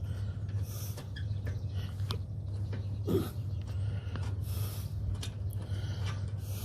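Scattered light metal clicks and taps of spanners working on the rear brake light switch housing, over a steady low hum, with one short squeak about three seconds in.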